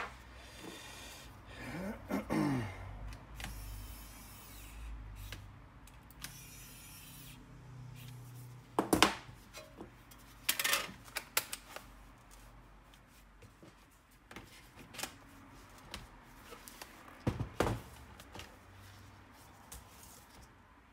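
Handling noise from a laptop's plastic case on a workbench: scattered knocks and sharp clicks, loudest in a cluster midway and a pair near the end, with a brief sliding, squeaky sound about two seconds in.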